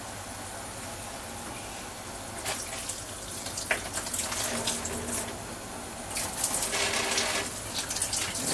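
Kitchen tap running steadily into a stainless steel sink while a knife is washed by hand under the stream. Irregular scrubbing and light knocking noises join in from about two and a half seconds in and are busiest near the end.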